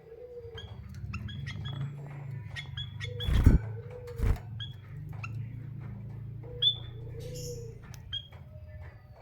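Caged finches, a canary and a white-headed munia, giving short high chirps every second or so over a steady low hum. Two loud thumps come about three and a half and four and a quarter seconds in.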